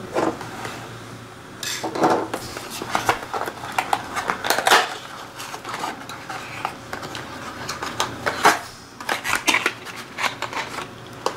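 Small cardboard retail box being opened by hand: paperboard flaps and tab pulled free, with irregular scraping, rustling and sharp little clicks and taps as the box is handled.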